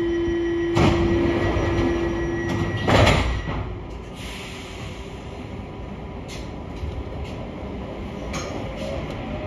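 Paris Métro MP14 train at a platform: a steady door-warning tone sounds, then the sliding doors shut with two loud thumps, about one and three seconds in. It stands running quietly, and near the end a faint rising whine from the traction motors starts as it moves off.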